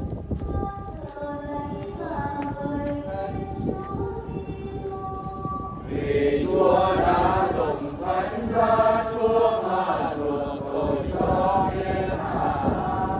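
A congregation sings a hymn in chant-like choral singing over a steady low rumble. The singing grows louder and fuller from about six seconds in.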